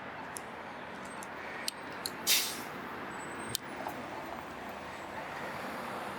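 Street traffic and wind noise with a few light clicks, and a short, sharp hiss about two seconds in.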